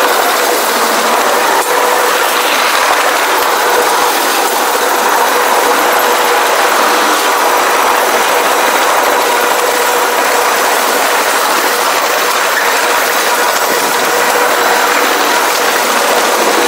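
Union Pacific freight train's cars rolling past at speed, a steady, dense clatter of wheels on rail with a faint steady tone under it.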